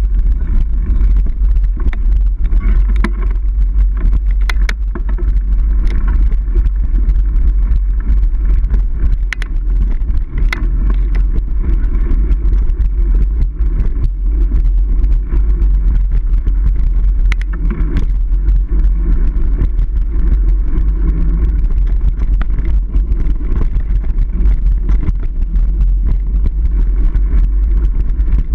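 Steady heavy low rumble of wind and ride vibration on the microphone of a camera carried on a Niner Jet 9 RDO mountain bike rolling along dirt singletrack. Scattered sharp clicks and rattles come from the bike over bumps, bunched around 3 to 5 seconds in and again near 10 and 18 seconds.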